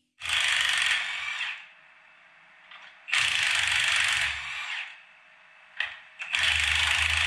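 Cordless impact wrench hammering in three bursts of about a second and a half each, running nuts off at the rear leaf spring of a pickup. There is a short click between the second and third bursts.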